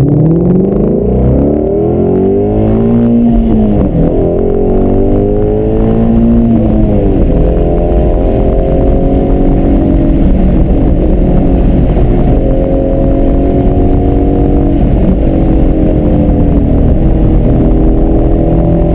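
Shelby GT350's 5.2-litre flat-plane-crank V8 accelerating hard out of the pit lane, rising in pitch and dropping twice as it shifts up, then running steadily at speed.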